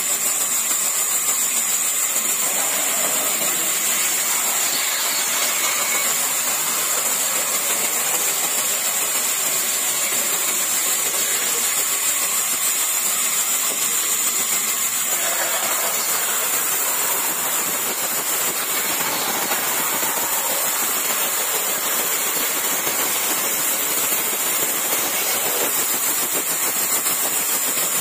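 Large table band sawmill running steadily, its blade cutting through an old, dry timber beam as it is pushed along the table; the sound shifts about halfway through.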